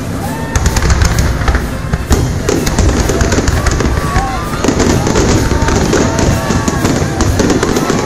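Aerial fireworks bursting overhead in a continuous barrage: heavy low booms under dense, rapid crackling and popping from glittering crackle stars.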